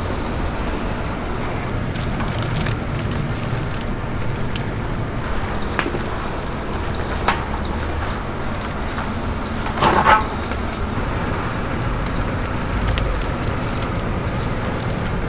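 Steady low machine rumble from a loach-washing drum with a motorised agitator, with a few sharp clinks and, about ten seconds in, a ringing clatter of a metal strainer against a tub of foamy live loaches.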